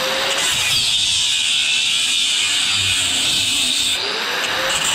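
Angle grinder running under load, cutting through the copper tubes at the edge of an air-conditioner condenser coil: a steady high whine with grinding hiss, its pitch briefly rising about four seconds in.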